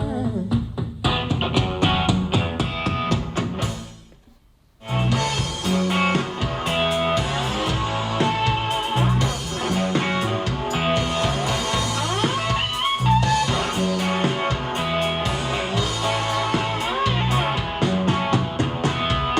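Bang & Olufsen Beosound Level speaker playing the instrumental part of a rock song: guitar over bass and drums. About four seconds in it drops almost to silence for about a second, then comes back in.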